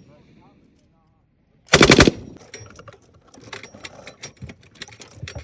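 A 7.62 mm M240B machine gun fires one short burst of about half a second, a rapid string of shots, about two seconds in. Scattered fainter shots and clatter follow.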